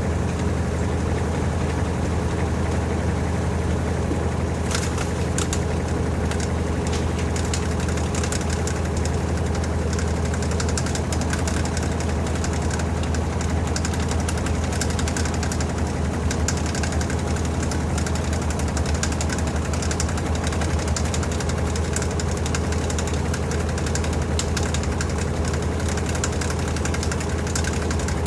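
LG TurboDrum 8.5 kg top-load washing machine spinning at a steady speed, its motor giving an even low hum. Light, rapid rattling ticks join in about five seconds in.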